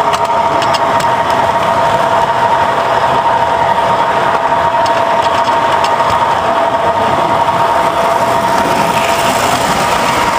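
Toy train running on three-rail tinplate track, heard close up from the moving train: a steady rolling rumble and hiss with a steady whine, and scattered light clicks from the rails.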